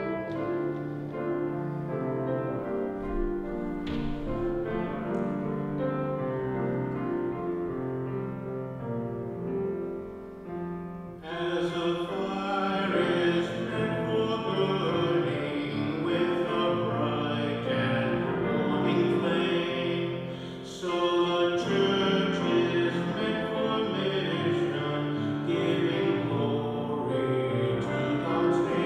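Church music with held chords that grows fuller and brighter about eleven seconds in, and again about twenty-one seconds in.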